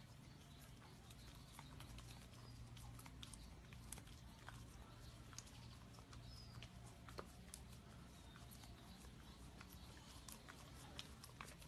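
German Shepherd puppy licking and smacking at soft food on a plastic spoon: faint, irregular wet clicks of tongue and lips.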